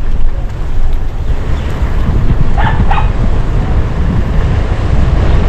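A dog barks twice in quick succession about halfway through, over a steady low rumble.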